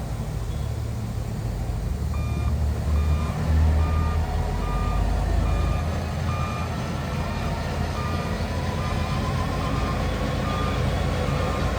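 A heavy construction machine's back-up alarm beeping at an even rate of about two beeps a second. It starts about two seconds in, over the steady low rumble of diesel engines.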